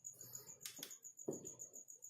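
Faint clicks and a soft knock from screwdriver work on the screws inside an opened desktop computer case: one sharp click a little under a second in, then a duller knock just after.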